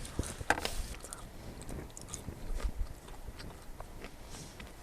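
Close-miked chewing and wet mouth clicks of someone eating, with scattered small clicks and soft low thuds.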